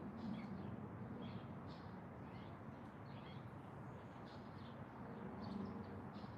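Birds chirping faintly, many short separate calls scattered throughout, over a steady low background rumble.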